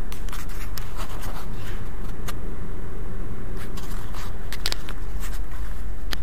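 Steady low rumble of a ship's machinery at sea, with scattered scrapes and sharp clicks from the camera being handled on the move, several close together near the end.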